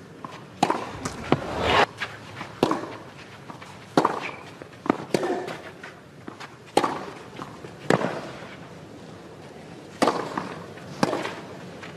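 Tennis rackets striking the ball in a rally on a clay court: a series of sharp pops a second or so apart, some followed by a brief rush of noise.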